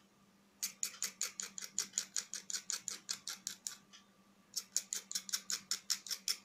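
A knife blade scraping the enamel insulating film off the end of a thin copper wire, in quick regular strokes about six a second. The scraping comes in two runs with a pause of about a second a little past halfway.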